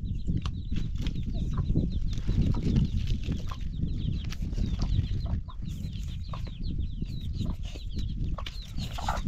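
A hen with chicks: many short high cheeps from the chicks, with occasional clucks, over a steady low rumble.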